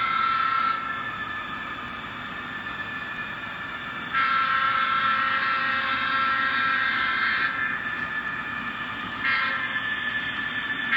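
Sound-equipped HO scale model diesel locomotive playing its engine sound as the train approaches. A steady mix of pitched tones swells louder about four seconds in and again near the end.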